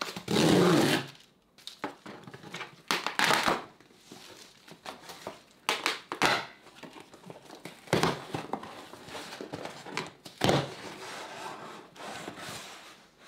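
Cardboard box being opened and unpacked by hand, with its packaging crinkling and rustling in irregular bursts. The loudest rustle comes in the first second.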